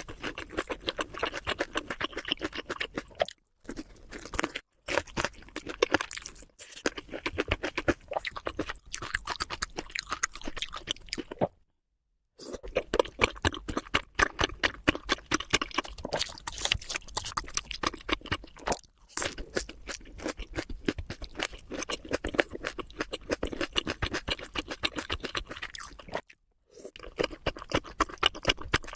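Mukbang ASMR eating: dense, rapid crunching and chewing of crisp food right at the microphone. It breaks off several times in short, complete silences where clips are spliced together.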